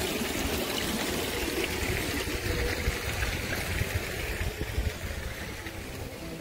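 Water pouring or trickling steadily, with an uneven low rumble underneath.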